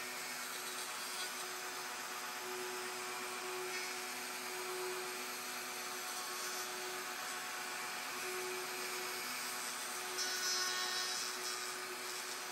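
Electric plunge router running steadily with a dovetail bit, cutting half-blind dovetails in oak through a dovetail jig template: an even motor hum with one held tone that swells and fades as the bit is pushed through the wood.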